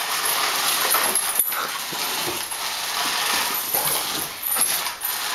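Golden retriever whining softly a few times over the steady buzz and plastic rattle of a small toy RC car running on a tile floor.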